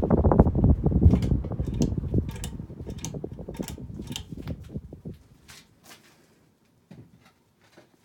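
Hunter Dimensions ceiling fan running, its blades pushing air past the microphone in a pulsing rush, with sharp clicks as its pull-chain switch is worked. The rush fades out about five seconds in, leaving a few faint clicks.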